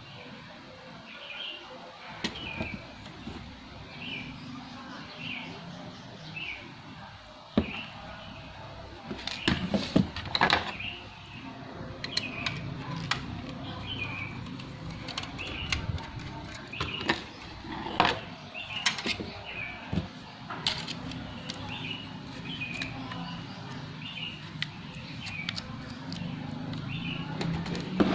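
A bird chirps over and over, about once a second. Over it come scattered sharp clicks and knocks of laptop parts being handled as the CD-ROM drive is taken out and the hard-drive caddy is fitted.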